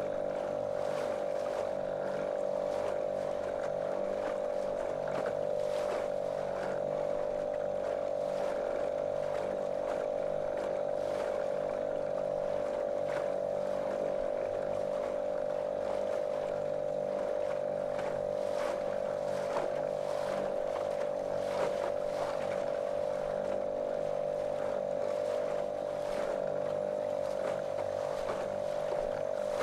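Small motorboat's outboard motor running at a steady, unchanging pitch, with water splashing against the hull.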